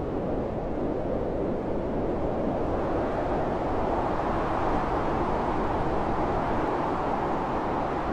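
Blizzard wind blowing steadily as a deep, even rush, swelling slightly in the middle.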